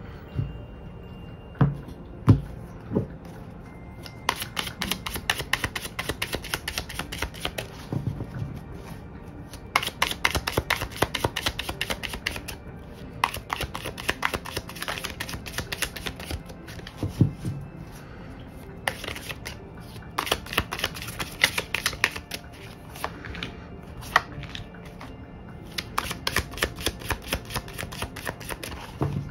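A deck of tarot cards being shuffled by hand: several bursts of rapid, dense card clicks a few seconds long, with short pauses and a few low thumps in between. Soft background music runs underneath.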